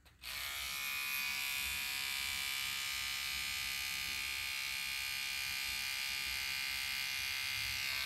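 Electric toothbrush switched on a moment in, then buzzing steadily, its back held against tomato flowers to shake the pollen loose.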